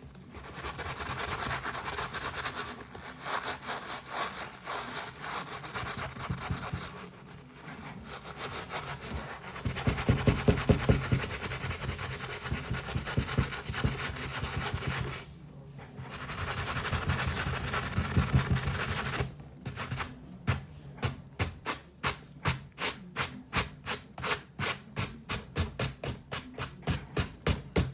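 Scrubbing on a sneaker's sole, a rubbing, scratching sound that turns into quick, regular back-and-forth strokes, about two or three a second, in the last third.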